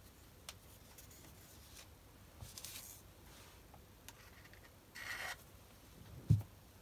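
Quiet bench-work handling noises of small steel parts and tools: a few faint clicks and rubs, a short rustle about five seconds in, and a dull knock just after six seconds, the loudest sound.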